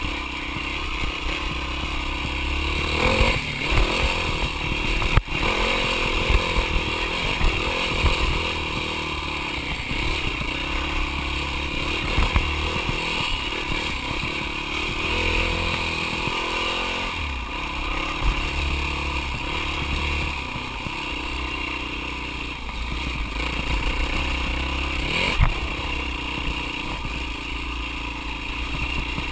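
Dirt bike engine running and revving up and down while being ridden over rough ground, with the bike clattering over bumps and a sharp knock about five seconds in.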